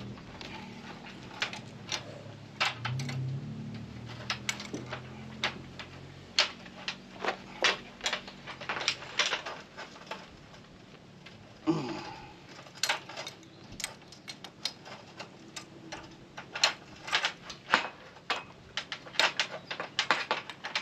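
Metal wrenches clicking and clacking on a Sta-Lok rigging terminal as its nut is screwed onto the eye body. The clicks are sharp and irregular, some in quick pairs.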